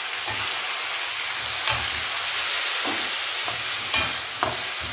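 Brinjal and plantain pieces sizzling in hot oil in a kadai while a steel spoon stirs them. The spoon scrapes and knocks against the pan a few times.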